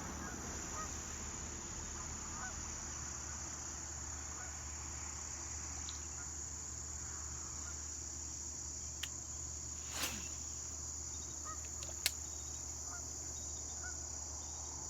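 Steady high-pitched chorus of insects, with three sharp clicks in the second half.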